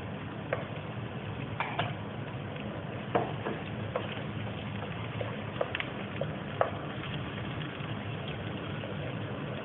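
Onion and garlic frying in olive oil in a pan: a steady sizzle with scattered small pops and crackles.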